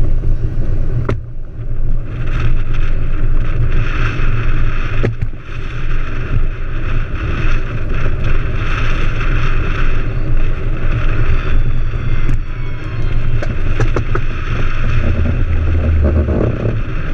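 Unpowered gravity go-cart rolling fast downhill on a paved road: a steady rumble from its wheels on the tarmac and rattling of the cart, with wind on the onboard microphone. A few sharp knocks come from bumps in the road.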